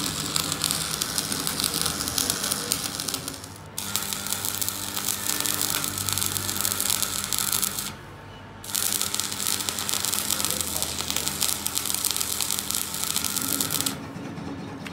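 Stick (manual metal arc) welding on a steel gear: the arc crackles and sizzles steadily, breaks off briefly about four and eight seconds in, and stops near the end.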